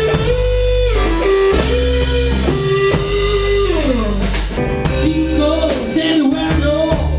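A band playing blues-rock. A lead guitar plays held notes with bends and a long downward slide over bass and a drum kit.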